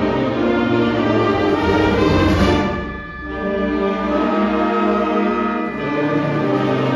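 Full high school concert band of woodwinds, brass and percussion playing, holding chords over a steady low pulse. About three seconds in the sound briefly dips before a new sustained chord comes in.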